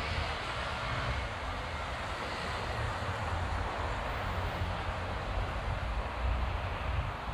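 Steady road traffic: an even hiss of passing vehicles with a low, uneven rumble underneath.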